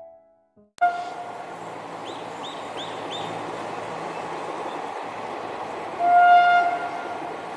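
Indian Railways WAP-4 electric locomotive's horn: a short toot about a second in, then a longer, louder blast about six seconds in, over steady background noise. A bird gives four quick chirps in between.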